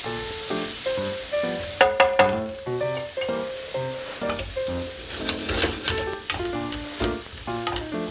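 Carnaroli rice and onion toasting in hot olive oil in a stainless pan, with porcini mushrooms frying alongside, sizzling while a wooden spatula stirs and scrapes, clicking against the pan in short clusters. Background music with short plucked-sounding notes plays throughout.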